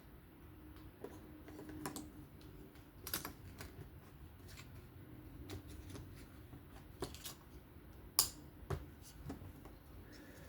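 Irregular light clicks and taps of small metal tools and knife parts being handled during folding-knife disassembly, with the loudest sharp click about eight seconds in.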